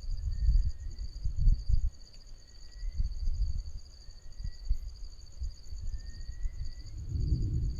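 Insects trilling steadily in two high pulsing bands, with a faint short rising chirp repeated every second or two. Under them runs an uneven low rumble that swells near the end.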